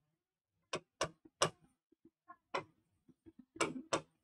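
Marker tip tapping and scraping on a writing board in about six short, irregular strokes as a word is handwritten.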